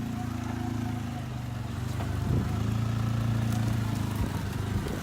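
A vehicle engine running steadily at low revs, a little louder from about two seconds in and easing back near the end.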